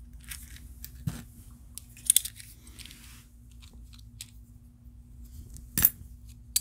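Silver coins and fractional silver rounds clinking against each other as they are handled and stacked in a palm: a few sharp separate clinks, the loudest near the end.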